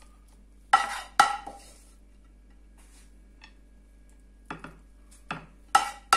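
Serving spoon clinking against dishes, each clink ringing briefly: two sharp clinks about a second in, then a quick run of lighter and louder clinks near the end.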